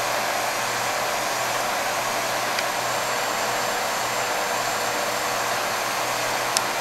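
Electric heat gun blowing steadily on its hot setting through a reflector nozzle, shrinking heat-shrink tubing over a wire splice. A faint tick near the end.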